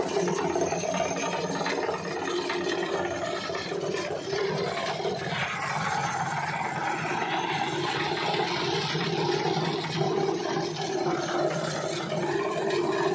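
Motor-driven hammer-mill grinder running steadily as it grinds fermented goat manure: a continuous motor hum under a noisy grinding rasp that grows brighter from about five seconds in.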